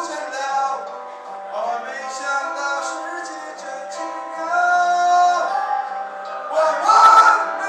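A male singer singing a song into a handheld microphone over instrumental backing, with long held notes; it grows louder near the end.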